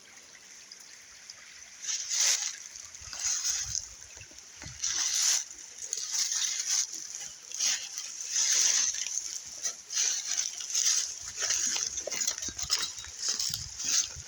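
Footsteps over rough ground: a series of rustling, scuffing steps, starting about two seconds in and coming roughly once a second.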